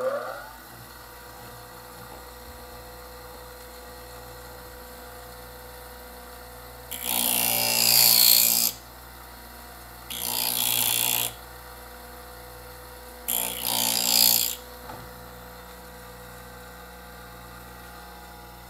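Wolff Industries bench grinder just switched on, its motor finishing spin-up with a rising whine, then running with a steady hum. Three times, a little over a second each, a buttonhole scissor blade is pressed against the spinning wheel and ground with a loud hiss to raise a burr along the edge.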